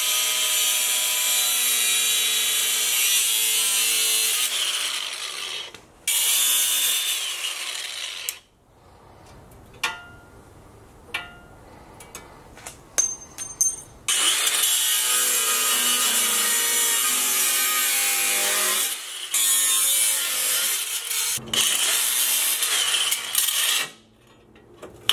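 DeWalt cordless angle grinder cutting through steel bracket tabs, running in passes of a few seconds with a steady high whine. About eight seconds in it stops for several seconds of scattered clicks and knocks as the cut is handled, then grinds again in three more passes until near the end.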